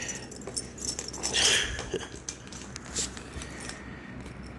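A serval scuffling and pawing on a wooden floor while it is handled and plays: irregular scratching, rustling and clicks, with a louder noisy burst about a second and a half in and quieter scuffles near the end.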